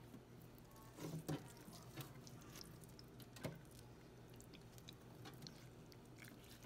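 Faint wet squishes and a few soft clicks of a scalded geoduck's skin being peeled off its siphon by hand, the loudest about a second in and again about three and a half seconds in, over a steady low hum.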